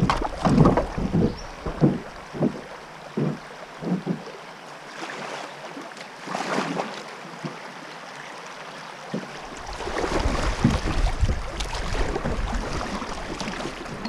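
Shallow river riffle rushing and rippling around a moving kayak, with gusts of wind buffeting the microphone, heaviest in the first few seconds and again in the second half.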